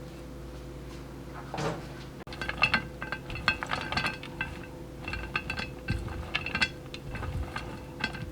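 Cutlery clinking against dishes: a quick, irregular series of light ringing taps starting about two seconds in, over a steady low hum.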